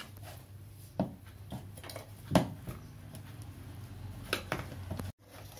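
A few light knocks and taps of a pastry brush and a metal tube cake tin as the tin is greased with melted butter, with the sharpest knock about two seconds in.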